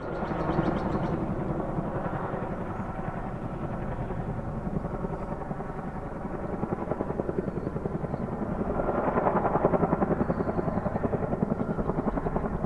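Boeing CH-47 Chinook tandem-rotor helicopter flying past, its rotors making a steady, rapid chop. The sound swells louder about nine seconds in.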